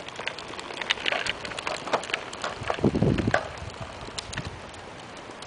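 Scattered light clicks and knocks at an uneven pace, with a brief low rumble about three seconds in.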